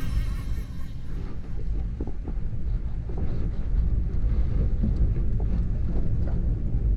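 Steady low rumble aboard a small fishing boat, with a few faint knocks and taps as a gill net is hauled in by hand over the side.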